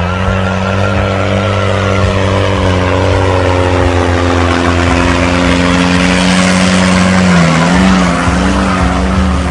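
Tractor diesel engine running hard under heavy load at a fairly steady pitch. The note sags and recovers briefly about seven and a half seconds in.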